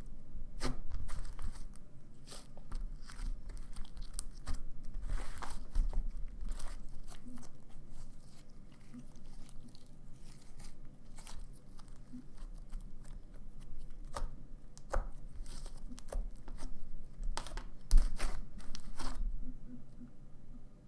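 Thick slime being stretched, pressed and pulled apart by hand, making irregular tearing crackles and small pops.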